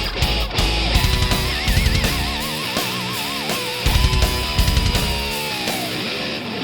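Background rock music with distorted electric guitar; a lead guitar plays a note with wide vibrato, then holds a long note that bends down near the end.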